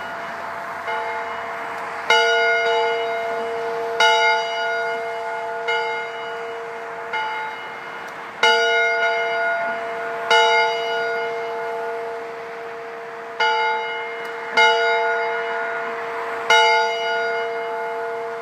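A single church bell tolling in remembrance, struck about every one and a half to two seconds, some strokes louder than others, each one ringing on into the next.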